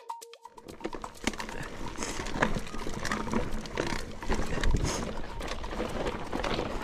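Mountain bike riding down a rocky trail: tyres crunching and knocking over loose rock, with the bike rattling and a steady low rumble underneath. It starts about half a second in, as the last pulses of an electronic beeping title tune stop.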